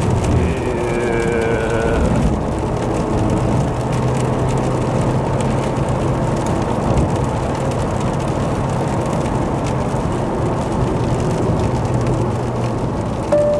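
Vauxhall Corsa driving on a wet road, heard from inside the cabin: a steady engine drone under a continuous hiss of tyres and road noise. A short steady beep starts near the end.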